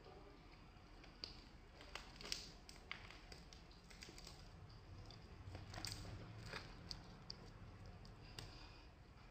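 Crispy battered fried eggplant strips being torn apart by hand, the crunchy coating giving scattered sharp crackles and snaps.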